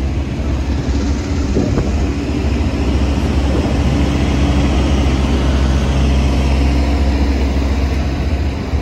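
Engines running steadily in a deep, even drone.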